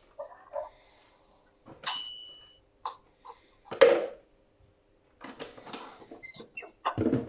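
Kitchenware clinking: a sharp metal-on-dish strike with a short ringing ding about two seconds in, a louder knock near the middle, then a run of small clattering taps near the end, as spoons and containers are handled while measuring seasonings.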